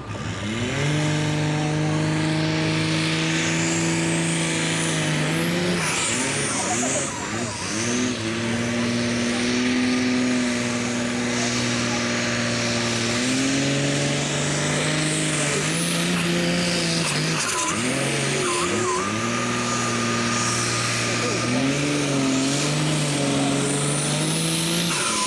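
Modified pulling tractor's diesel engine running flat out under load as it drags the weight sled, black smoke pouring out. The pitch climbs in the first second, then holds with several sudden dips and steps, around five seconds in and again past the middle.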